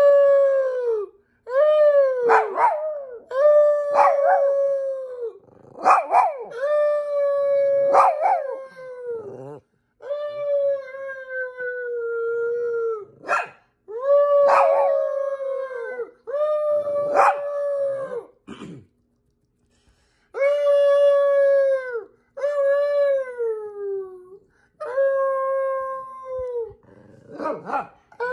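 Chihuahua howling: a string of about a dozen long, level howls, each dropping in pitch at the end, with short sharp yips breaking in a few times.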